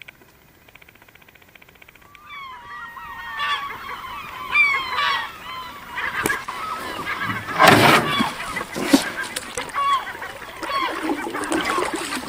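A flock of gulls calling in alarm: many overlapping short, harsh calls that start about two seconds in. A few louder thumps or splashes come through the middle.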